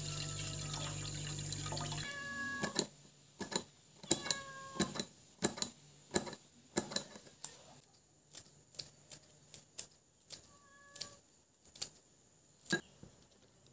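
Water pouring and splashing into a frying pan for about two seconds. After that comes a run of about a dozen irregular sharp snips from scissors cutting small green chilies, a few of them with a short squeaky ring.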